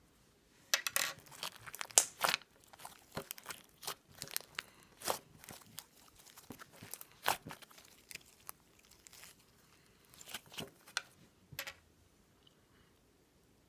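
Irregular, quick crinkling and crackling handling noises, dense at first and thinning out near the end.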